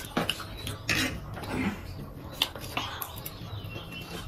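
Eating at a table: a few short clicks and scrapes of a spoon and forks against plates and a tray, with chewing and other mouth noises in between.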